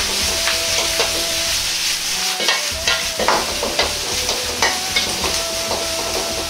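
Stir-frying cabbage, green pepper, carrot and ground pork in a wok: steady sizzling, with the metal ladle scraping and knocking against the wok about once a second.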